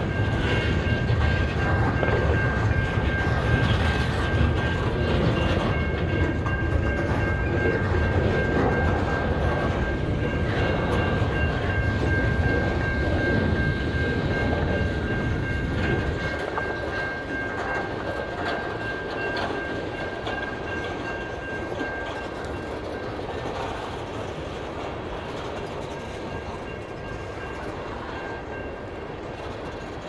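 Freight cars rolling past at a crossing, wheels clicking over the rail joints. The rumble lightens suddenly about halfway through, and a steady high ringing tone fades out about two-thirds of the way in.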